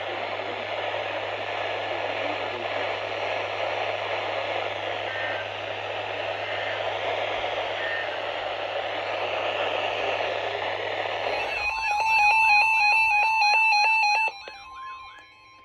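Weather radio receiver hissing with static over a steady low hum. About twelve seconds in, loud warbling electronic alert data tones break in for a couple of seconds, then cut off suddenly, leaving a faint steady tone.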